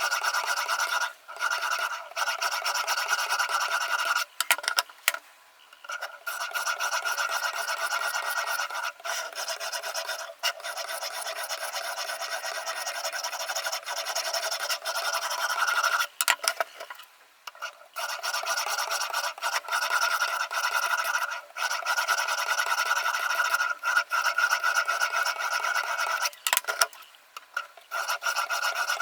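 Sharpening stone on a Ruixin Pro RX-008 guided sharpener stroked rapidly back and forth along the edge of a VG10 Damascus kitchen knife: a steady rasping scrape that stops briefly a few times.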